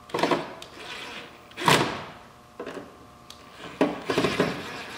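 A handful of short clunks and scrapes of hand-work against a car's metal firewall as a heater-hose adapter is fitted, the loudest about a second and a half in.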